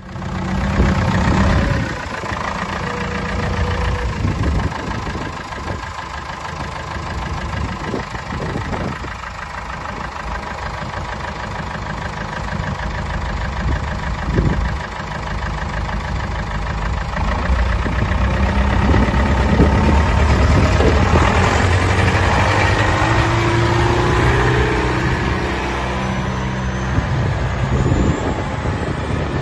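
Case 1394 tractor's four-cylinder diesel engine running, with a couple of sharp knocks in the first half. It grows louder in the second half as the tractor drives off.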